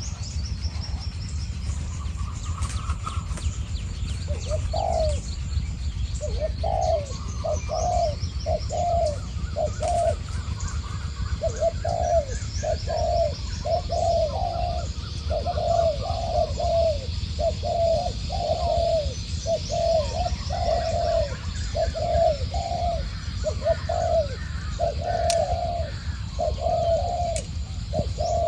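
Spotted doves cooing: a decoy dove and a wild dove calling back and forth. Low, repeated coo phrases come about once a second, starting a few seconds in and running on steadily, with fainter chirps of small birds higher up.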